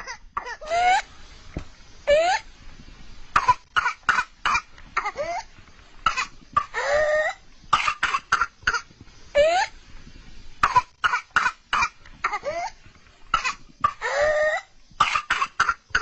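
A young child with whooping cough (pertussis) in coughing fits: runs of rapid, short coughs, each broken by a rising, high-pitched whoop as the child gasps for breath, several times over. Fits of rapid coughs followed by a whoop are the classic sign of the paroxysmal stage of pertussis.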